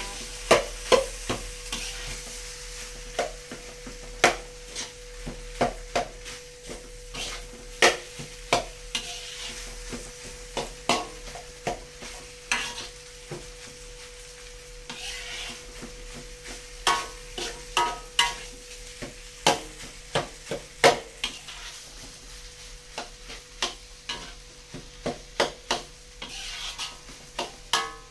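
Fried rice being stirred and tossed in a frying pan with a spatula, the utensil knocking and scraping on the pan a couple of times a second over a faint sizzle.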